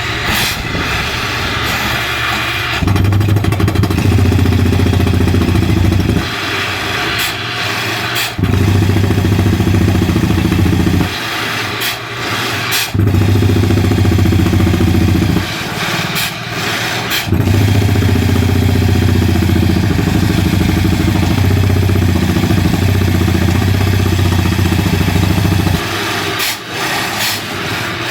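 Engine of a borewell boring rig running, growing much louder and deeper in four spells of a few seconds each, the longest about eight seconds near the end, and easing back between them.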